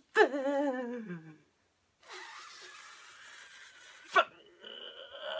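A man's voice making wordless unicorn noises: a wavering cry falling in pitch, like an imitated horse whinny, then a long breathy hiss. A sharp click just after that is followed by a high, held squeal near the end.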